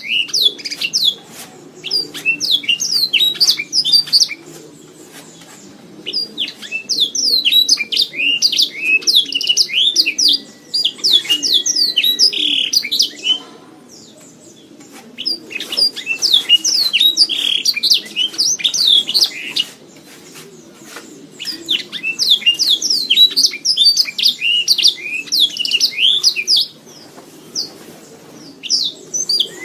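Domestic canary singing in long phrases of rapid high trills and chirps, with short pauses between phrases, over a faint low steady hum.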